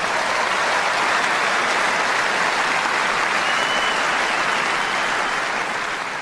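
Large concert audience applauding, a dense steady clapping that starts to fade near the end.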